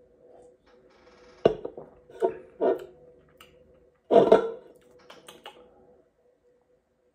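Drinking from an aluminium drink can: swallows and mouth sounds, and the can knocking against a wooden table, in a few short, sharp sounds with the loudest about four seconds in. A faint steady hum lies underneath.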